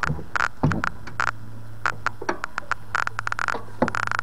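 Irregular, rapid clicking on the recording, the annoying clicking noise that runs through this video's audio, with a low steady hum coming in about a second in.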